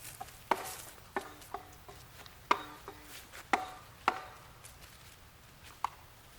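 A plucked string instrument played slowly, a run of about eight separate sharp notes, each ringing briefly. The notes thin out after about four seconds.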